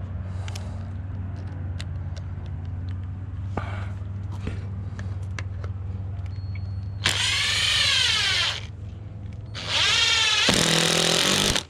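Power drill run twice, about a second and a half to two seconds each, its whine sagging in pitch under load, over a steady low hum.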